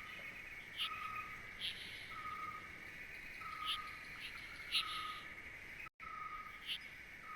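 Faint night-time nature ambience: a steady insect trill with a short call repeated about once a second, and a brief cut-out near the end.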